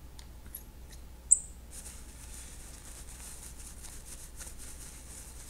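Soft paper-towel rustling as a fresh-glued fly is wiped off in the vise, with a short high squeak about a second in.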